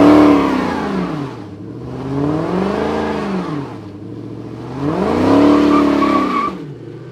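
A car engine revving up and falling back three times, about two and a half seconds apart.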